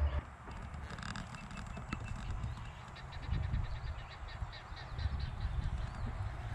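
Birds calling in quick, repeated short notes, over a steady low rumble.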